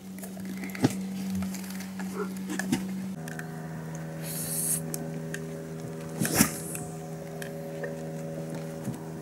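Boat motor running steadily at low speed as a low hum, its pitch dropping a step about three seconds in. A few sharp knocks sound over it, the loudest a little past the middle.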